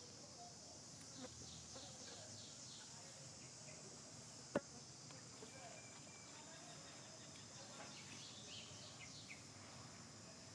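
Faint, steady high-pitched insect drone with short, high, falling chirps over it, and a single sharp click a little before the middle.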